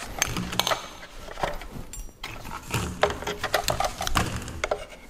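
Plastic clicking, knocking and scraping as a vacuum hose is pushed and twisted into the dust port at the back of a mitre saw, which it does not fit well.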